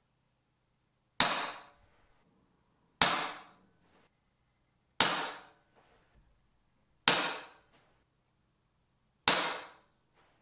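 Pre-charged pneumatic air pistol (SMK Victory PP700W) firing five shots about two seconds apart, each a sharp crack that dies away within about half a second.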